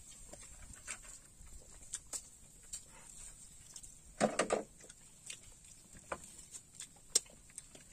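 Close-up eating sounds of a man eating grilled fish and rice by hand: scattered soft lip smacks, chewing and plastic-bag crinkles, with a brief low vocal sound about four seconds in and a sharper click near the end.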